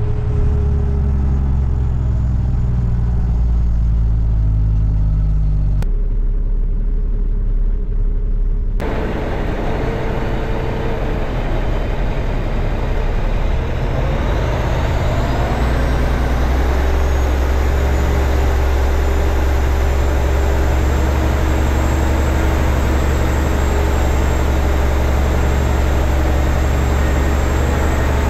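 2007 Kenworth dump truck's diesel engine running as the truck drives, its pitch falling over the first few seconds. From about halfway a high whine rises in pitch for a few seconds as the truck pulls, then the engine settles into a steady hum.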